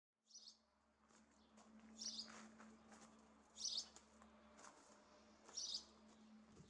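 A small bird chirping: four short high chirps, roughly one every one and a half to two seconds, over a faint steady hum.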